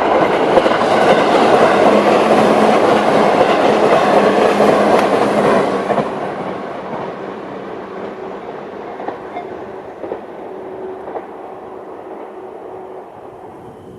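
A JR 211-series electric train running past over the level crossing: a loud, steady rush of wheels on rail that drops off about six seconds in and then fades away as the train recedes.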